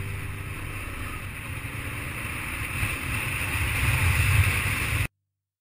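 Motorcycle engine running as the bike rides a gravel track, under a steady rushing noise of wind and tyres. It gets louder near the end and cuts off abruptly about five seconds in.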